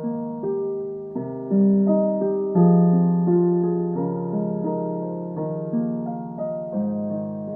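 Background music: soft piano, notes and chords struck and left to ring, changing about every second.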